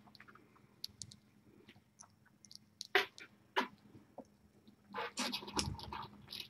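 Faint scattered clicks and light taps of kittens moving about and playing in a cardboard box, with a short rustle about five seconds in.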